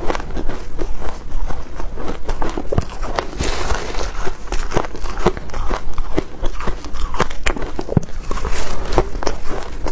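Close-up crunching and chewing of a mouthful of soft, snowy shaved ice, a dense run of small crackles and crunches, along with gloved fingers digging into and grabbing the ice in the tub.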